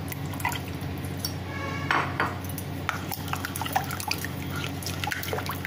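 Spoon clinking and scraping against a glass mixing bowl as thick yogurt is tipped in from a plate and stirred into gram-flour batter, with soft wet sloshing and a brief squeak about two seconds in.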